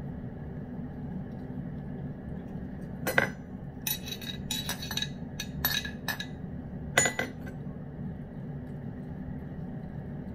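A metal eating utensil clinking: six or seven sharp, ringing taps in the middle of the clip, over a steady low background hum.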